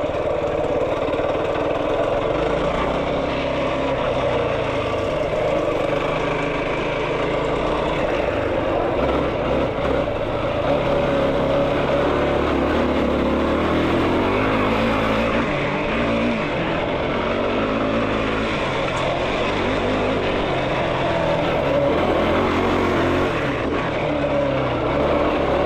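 Yamaha YFZ450R sport quad's single-cylinder four-stroke engine running under load as it is ridden, revving up and down.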